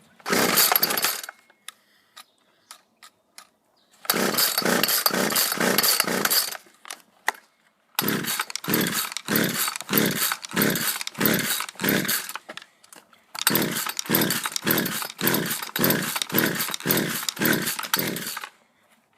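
Poulan two-stroke chainsaw engine sputtering in evenly spaced pulses, about two to three a second, in four runs with short gaps between them. It is starving for fuel as the last gas is run out of the carburetor for storage.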